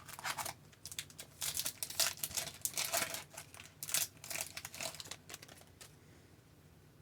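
A trading card pack's wrapper being torn open and crinkled: a run of short crackling rips lasting about five seconds.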